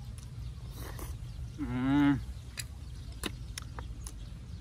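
One short, loud, pitched vocal sound with a wavering tone about two seconds in, followed by a few sharp clicks, over a steady low rumble.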